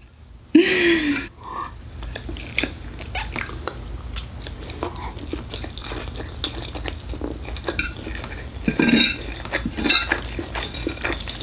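Close-up chewing and slurping of instant fried noodles eaten with a fork: many small wet mouth clicks and crackles, with a brief vocal sound about half a second in and a louder cluster of mouth noise near the end.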